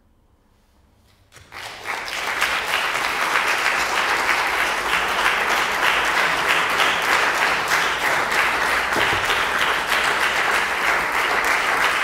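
Audience applauding. It starts suddenly about a second and a half in, out of near silence, then holds steady and loud.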